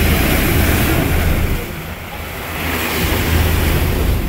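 Wind buffeting the microphone over the rush of a tour boat's churning wake, with a steady low rumble underneath; the rush eases briefly about two seconds in.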